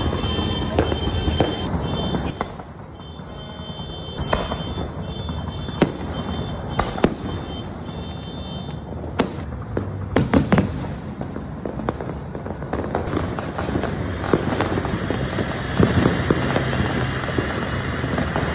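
Fireworks going off: sharp bangs every second or so over a steady hiss, with a quick cluster of loud bangs about ten seconds in.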